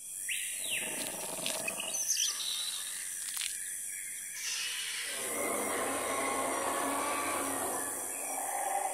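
Jungle ambience sound effect: a steady high hiss with a few short bird chirps and calls, then an animal roar that comes in about halfway through and holds.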